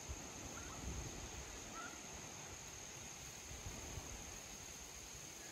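Steady high-pitched drone of insects singing in a brushy field, with a low wind rumble underneath and two brief faint chirps early on.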